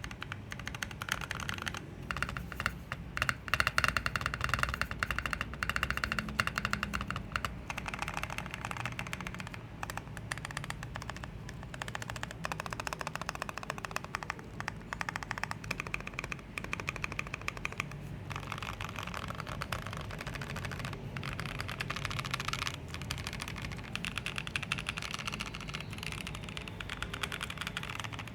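Fast continuous typing on a custom 60% mechanical keyboard with lubed Gazzew Boba U4T tactile switches and Mekanisk Ultramarine stabilizers: a dense stream of key clacks, with occasional louder strikes.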